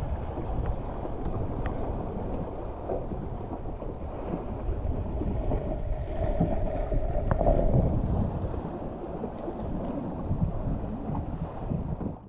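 Wind buffeting the microphone and water rushing along the hull of a Sunfish sailboat moving fast through chop, with a brief humming tone about halfway through. The sound cuts off abruptly at the end.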